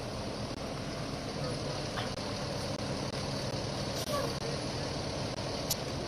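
A vehicle engine idling steadily, with a few brief clicks over it.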